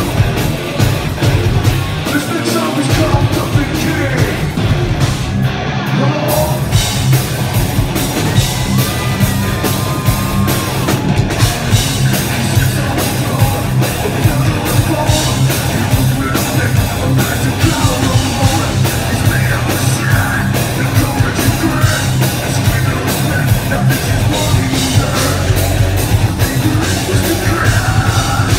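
Live hard rock band playing loud: electric guitars and a drum kit with vocals.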